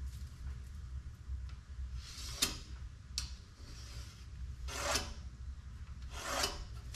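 Short scratchy strokes and rubbing of a marker drawing layout lines on a bare steel plate along a steel straightedge bar. There are four strokes over the last five seconds, with a sharp click after the first.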